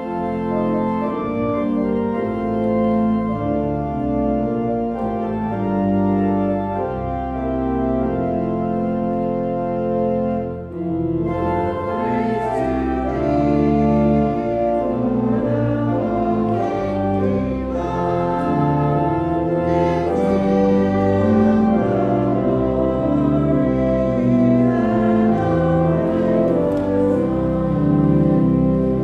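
Church organ playing a hymn in sustained chords, with the congregation joining in singing about twelve seconds in.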